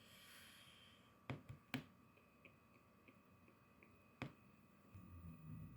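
Near silence, broken by a few faint, sharp clicks and soft ticks.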